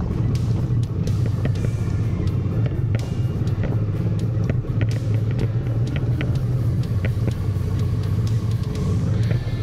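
Big enduro motorcycle engine running under way on a dirt track: a steady low rumble with scattered short clicks.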